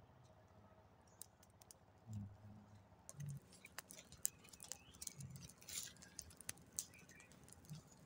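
A small fire of dry leaves and twigs crackling with scattered sharp ticks and pops, much denser from about three seconds in, with a few soft low thuds among them.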